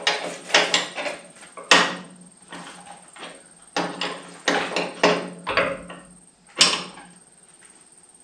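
Steel hand tools, an open-end wrench and a ratchet, clicking and clinking against a hydraulic hose fitting as it is held and snugged tight: irregular sharp metallic knocks, several a second, with a louder knock about two seconds in and another near the end.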